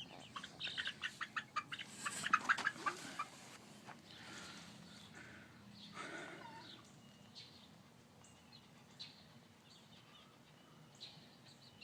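Hens clucking: a quick run of clucks over the first few seconds, then a few scattered calls that grow quieter toward the end.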